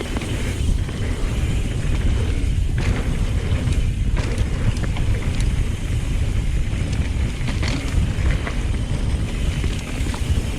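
Mountain bike rolling down a dirt jump trail: steady wind rush over the microphone and tyre noise, with scattered clicks and rattles from the bike.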